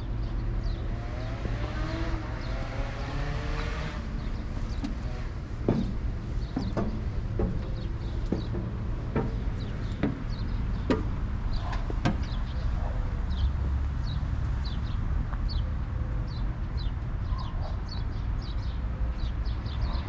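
Outdoor ambience: a steady low rumble, with small birds chirping repeatedly in the second half and a scattered series of sharp clicks or knocks around the middle.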